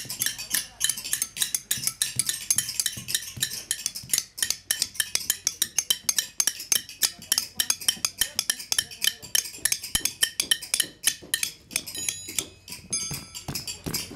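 Rapid, irregular clicking and tapping of several workers' small metal hand tools working the knots along a seam of a hand-knotted carpet. A few brief metallic ringing tones come in near the end.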